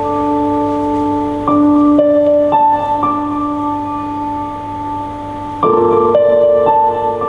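Slow instrumental piano music: long held chords that change every second or so, with a new chord entering more loudly near the end.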